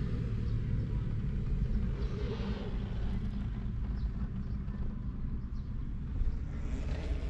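Steady low rumble heard inside a car's cabin, with a few faint handling rustles.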